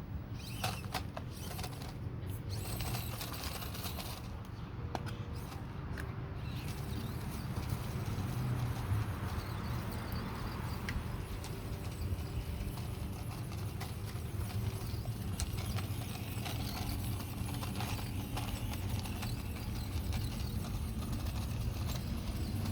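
Axial SCX24 Deadbolt 1/24-scale RC rock crawler driving over rocks: a steady low whine from its small electric motor and gearbox, with scattered clicks and knocks of the plastic truck and tyres on stone, most frequent in the first few seconds.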